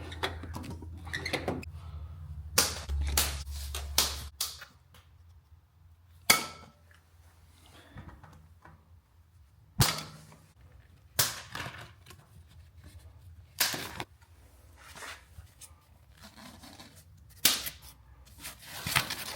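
Unpacking a boxed e-bike: a scatter of sharp snaps, clicks and knocks, about ten spread across the stretch, from packaging being cut and parts being handled. A low hum underneath stops about four seconds in.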